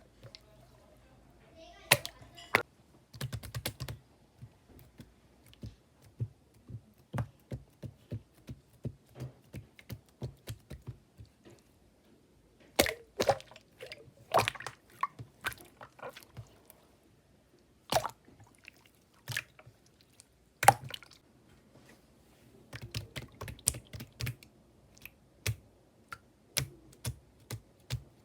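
Slime being squeezed and pressed by hand, giving many irregular sharp clicks and pops, at times in quick clusters.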